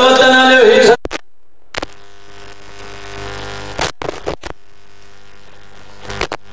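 A man's voice through a microphone breaks off about a second in. After that there is a steady electrical mains hum from the sound system, with a few sharp clicks.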